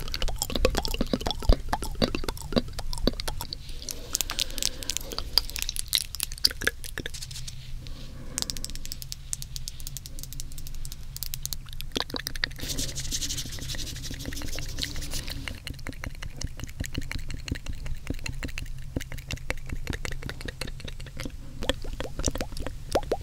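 Close-up wet mouth sounds into a binaural microphone: a dense, irregular run of tongue clicks, smacks and wet pops, with stretches of soft hiss about a third and two thirds of the way through.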